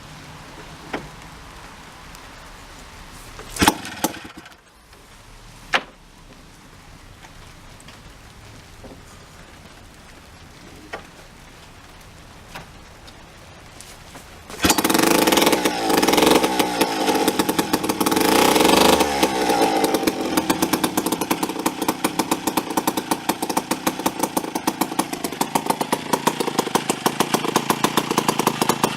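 Vintage 1940s Precision chainsaw being started: a few sharp knocks, then about halfway through the engine catches and runs with a fast firing rhythm, loudest for its first few seconds and then steadier.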